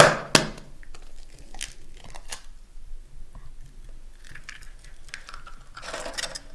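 Eggs being cracked for pasta dough: two sharp cracks of eggshell right at the start, then scattered small crunches and clicks, and a brief rustle near the end.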